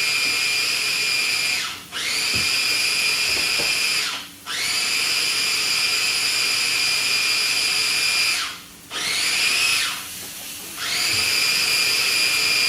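Small electric food chopper motor running at full speed with a steady high whine, stopped and restarted in short pulses four times.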